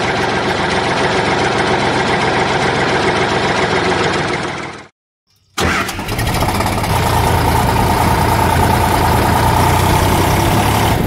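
Tractor engine sound running steadily. It cuts out abruptly for about half a second midway, then comes back as a second engine sound with a stronger low hum.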